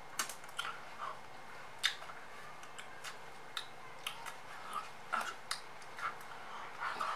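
A person's breathy vocal sounds and mouth clicks in short, scattered bursts, without clear words.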